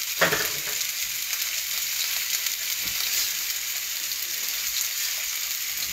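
Salmon fillets frying skin-side down in hot oil in a frying pan, a steady high sizzle while they brown. A brief knock just after the start.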